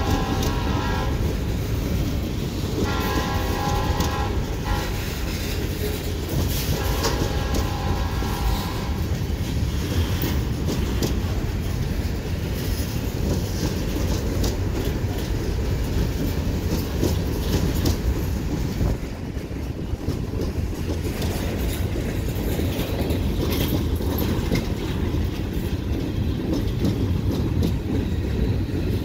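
Freight train cars (covered hoppers and gondolas) rolling past, with a steady rumble and wheel clicks and clatter over the rail joints. A locomotive horn sounds in long blasts in the first nine seconds or so: one ending about a second in, then two more.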